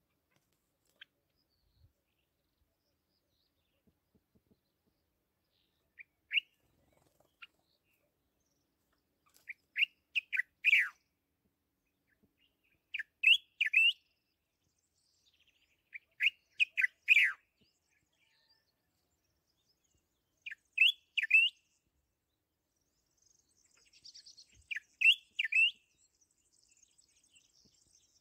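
A songbird singing short phrases of three to five quick, falling whistled notes, each phrase repeated every three to four seconds with silence between.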